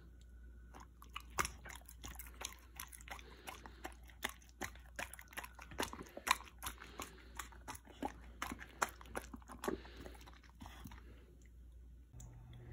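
A husky chewing a strawberry: irregular wet clicks and smacks of its jaws, several a second, that stop about eleven seconds in.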